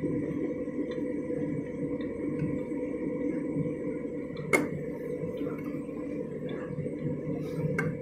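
Candy front-loading washing machine tumbling a big load in sudsy water: steady motor hum with water sloshing in the drum. A single sharp clink about four and a half seconds in, like something in the load knocking the drum or door glass.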